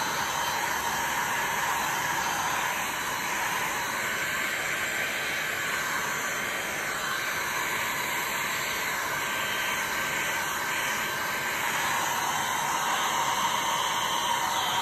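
Electric heat gun running steadily, its fan blowing a constant airy hiss as it is swept over wet resin to push the poured colours around, the tone shifting slightly as the nozzle moves.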